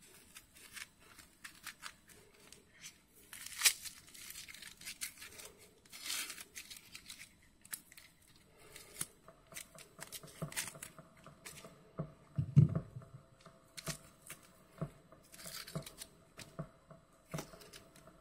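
Dry onion skin being peeled off with a kitchen knife: irregular crackling and tearing of the papery skin and scrapes of the blade, with a dull knock about twelve seconds in.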